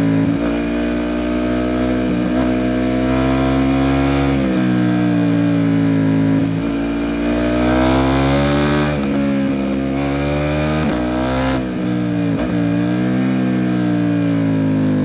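KTM 790 Duke parallel-twin through an Arrow Pro Race titanium exhaust, ridden on the road. The engine note climbs under acceleration and drops back again and again, as with gear changes and roll-offs.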